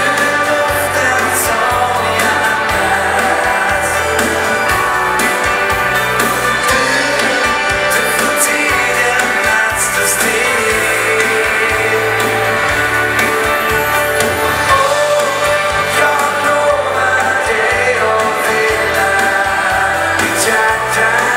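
Swedish dansband playing a foxtrot live through a PA, with drums, guitars, keyboard and a steady bass line under sung vocals.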